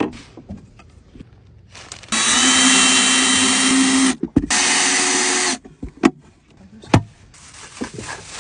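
Craftsman cordless drill running under load, cutting into a plastic cooler, in two runs of about two seconds and one second with a steady motor whine under the noise of the cut. Two sharp knocks follow near the end.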